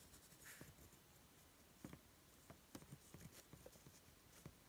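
Faint, irregular ticks and light scratches of a ballpoint pen writing on a sheet of paper.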